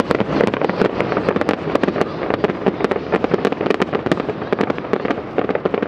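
Aerial fireworks bursting: a dense, unbroken string of sharp cracks and pops, many a second.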